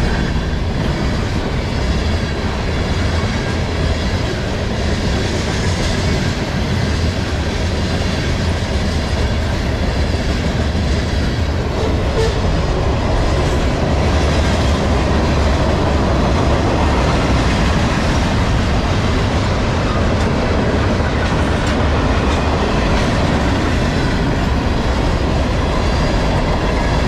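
Freight train cars rolling past close by: a steady, loud rumble of steel wheels on rail.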